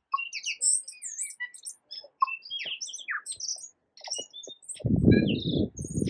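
Tui singing: a rapid string of varied short high whistles, clicks and gliding notes. About five seconds in, a loud low rumbling noise comes in under the song.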